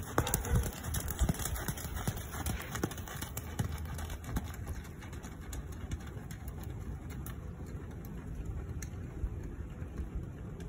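Hoofbeats of a horse moving over an arena's sand: soft irregular thuds and clicks that thin out after the first few seconds as the horse moves away, over a steady low background rumble.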